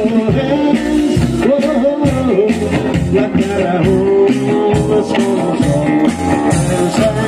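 A live band playing an upbeat rock-and-roll song with a steady beat: electric guitar, saxophone and upright double bass carrying a melody line.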